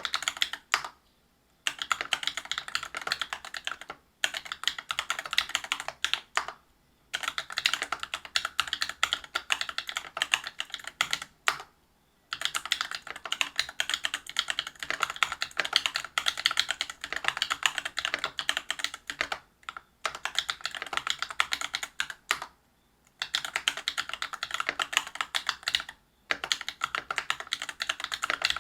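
Fast continuous typing on a Whale 75 mechanical keyboard with stock, unlubricated Cobalt POM linear switches (63.5 g) on a brass plate with PBT keycaps: rapid key clacks, broken by brief pauses every few seconds.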